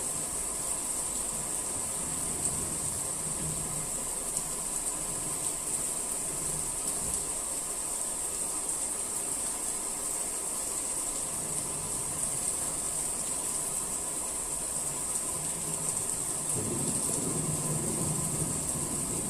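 Steady rain hiss, brightest in a high band and unchanging, with a low rumble swelling briefly near the end.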